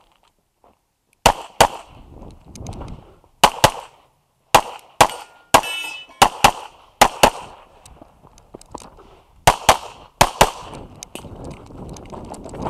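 Semi-automatic pistol firing about fourteen shots, mostly in quick pairs, with short pauses between groups as the shooter moves; movement rustle fills the gaps.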